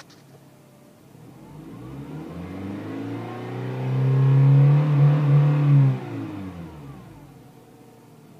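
Honda CR-Z four-cylinder engine and exhaust building up over a few seconds, loudest about four to six seconds in, then dropping off quickly and fading away.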